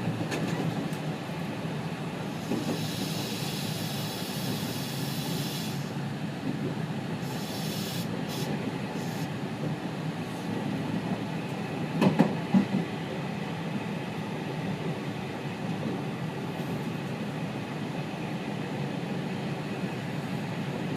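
Running noise inside the motor car of a JR West 207 series 1000 electric multiple unit travelling between stations, a steady rumble of wheels and motor. A high hiss comes in twice, a few seconds in and again around eight seconds, and a pair of loud knocks sounds about twelve seconds in.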